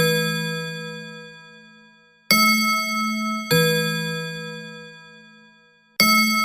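Grandfather clock striking the hour, counting out eleven o'clock. Its bells ring in two-note pairs, a higher then a lower stroke about a second apart, with a pair roughly every four seconds. Each stroke rings on and slowly fades under the next.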